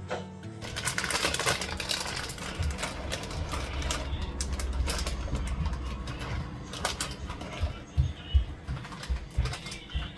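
Rapid irregular clicking and scraping from kitchen work with utensils, with a few sharper knocks near the end, over soft background music.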